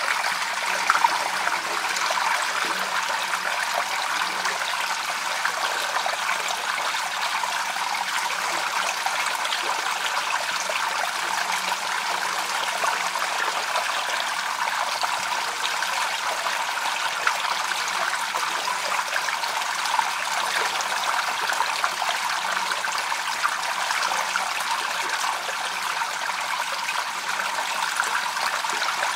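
Shallow water flowing over rocks, a steady babbling trickle full of small splashes.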